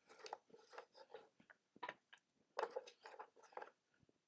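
Cut wooden cutting-board strips being turned on edge and set into a clamping jig by hand, giving faint, irregular light clacks and knocks of wood on wood. A few are a little louder near the middle.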